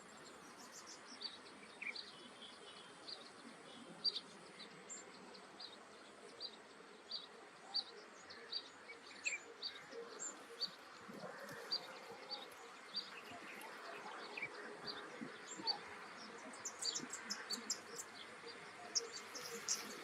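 Wetland ambience: insects buzzing with a steady high whine, and short high chirps repeating about every half second, thickening into a cluster of chirps near the end.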